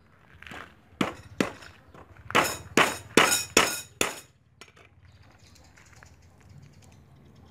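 Meat cleaver whacking garlic cloves on a thick round wooden chopping board to crush them: about seven sharp strikes over three seconds, starting about a second in.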